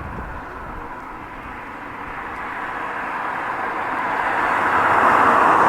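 A car approaching on the road, its steady noise growing louder toward the end.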